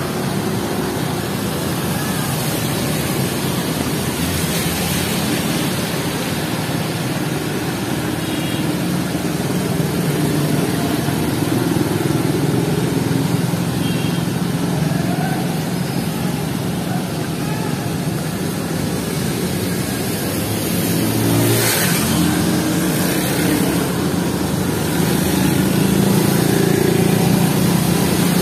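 Wet-road traffic: motorcycles and cars passing, engines humming and tyres hissing through water, over a steady wash of rain. It grows louder near the end as a vehicle comes close.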